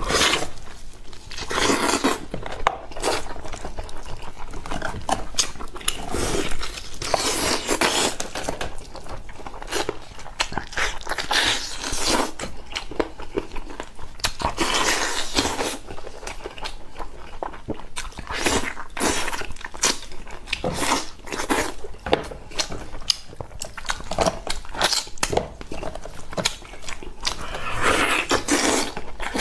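A person biting into braised lamb ribs, tearing meat off the bone and chewing with the mouth open, in irregular bursts of smacking and crunching.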